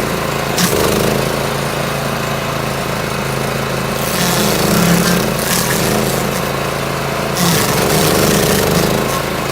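Self-propelled stump grinder's engine running steadily under load, its cutter wheel grinding into a stump. There is a harsher stretch of grinding noise from about four seconds in.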